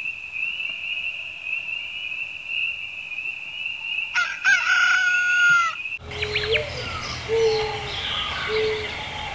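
Nature sounds: a steady high trill runs under a rooster crowing once, about four seconds in. From about six seconds, birds chirp over a low call repeated about once a second.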